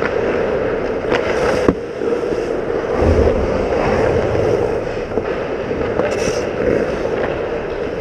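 Indoor ice hockey rink sound heard from inside the net: skates scraping on the ice under a steady hum, with two sharp stick or puck clacks in the first two seconds and a low rumble setting in about three seconds in.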